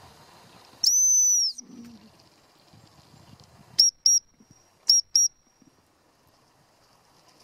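Gundog training whistle: one long, steady, high blast, then about three seconds later two quick double pips about a second apart.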